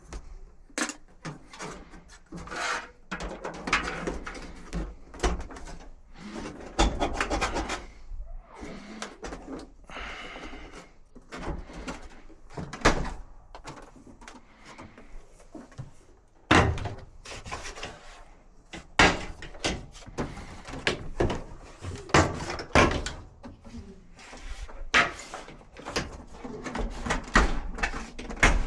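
Irregular knocks, clatter and scraping of dryer parts and panels being handled and worked on by hand, with a louder run of scraping about ten seconds in.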